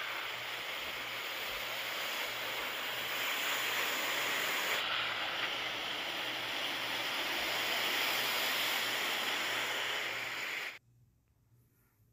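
Steady rushing noise of surf washing over a flat beach, cut off abruptly about a second before the end.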